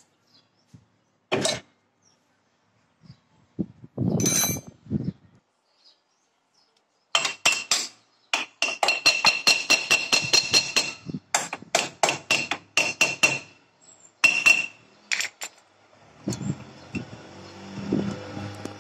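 Steel wrench clinking and tapping against a bearing puller clamped on a jammed brake drum. A few scattered clanks come first, then from about seven seconds in a quick run of sharp, ringing metallic taps, and a rougher, duller noise near the end.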